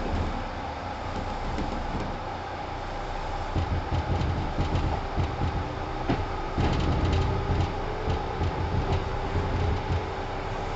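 Kintetsu 1010 series electric train running, heard from inside the car: a steady rumble with rhythmic clacks of the wheels over rail joints, which grow stronger from about a third of the way in. A faint motor tone rises slightly in the second half.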